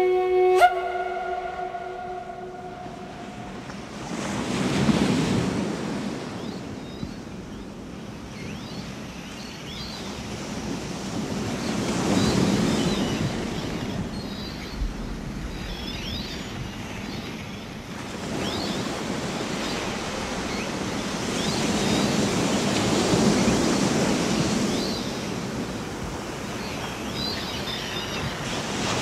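Ocean waves surging and receding in slow swells every five to seven seconds, with faint high chirps over them. A held chord ends with a sharp click just after the start.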